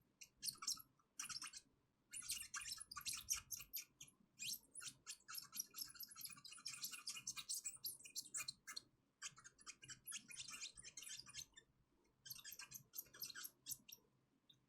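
Quiet, rapid scratchy clicking in about five bursts with short pauses, from small-scale hand work at an electronics repair bench.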